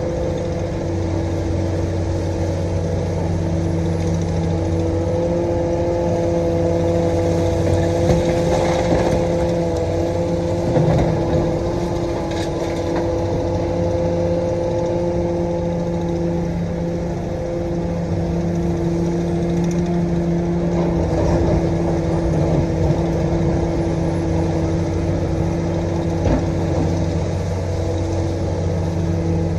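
Komatsu PC450-8 LC excavator's six-cylinder diesel engine running steadily while it digs, with a steady whine over the engine note and a few short knocks.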